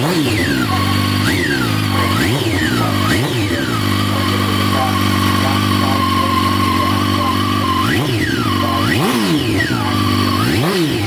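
Inline-four superbike engine idling and blipped on the throttle about six times, each rev rising sharply and dropping straight back. There is a cluster of blips in the first few seconds, steady idle in the middle, and more blips near the end.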